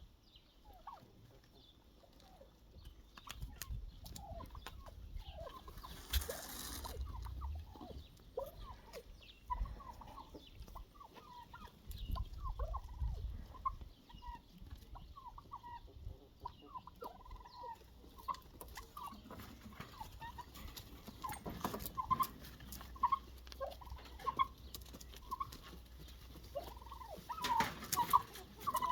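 A flock of farmyard poultry calling, with many short overlapping calls throughout. Brief rushes of noise come about six seconds in and again near the end.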